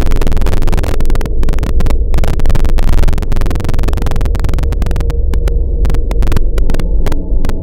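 Loud harsh noise music: a heavy distorted low rumble and hum under dense, irregular crackling.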